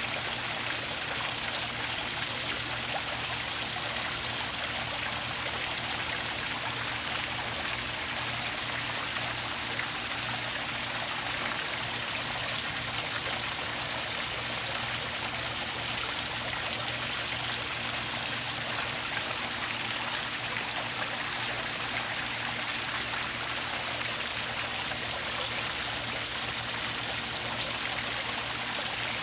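Steady running, trickling water from the swimming pool, even and unbroken, with a low steady hum underneath.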